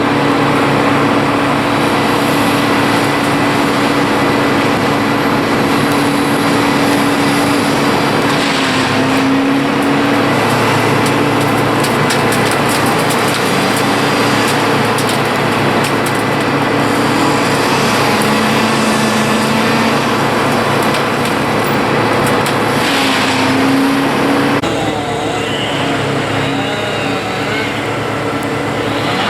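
Engines running steadily under a broad noisy din, their pitch shifting up and down several times. The sound changes abruptly near the end.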